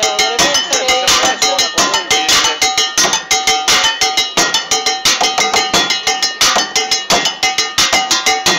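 Street percussionist drumming fast with sticks on the bottoms of old cooking pots: a dense, driving rhythm of metallic strikes, the pots ringing with their own pitches.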